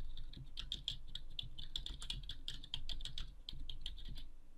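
Typing on a computer keyboard: a quick, irregular run of keystrokes that stops shortly before the end.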